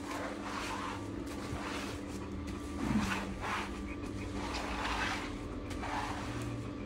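Rubber grooming glove scrubbing shampoo lather through a wet dog's thick coat: a soft wet swish with each stroke, about one every half second to a second. A steady low hum runs underneath.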